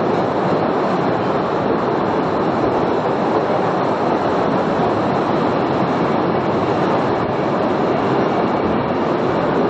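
Postojna Cave tourist train running on its track through the cave passages, heard from on board as a steady, even noise of the wheels on the rails.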